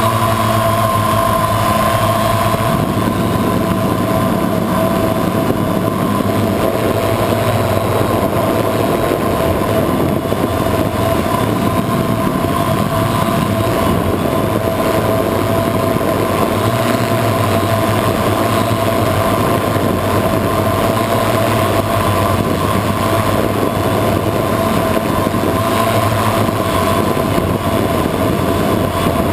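Electric motors and propellers of a multirotor FPV drone running in flight, heard by the camera mounted on the drone: a loud, steady whir with a high hum. A few lower tones shift in pitch in the first few seconds, then the sound stays even.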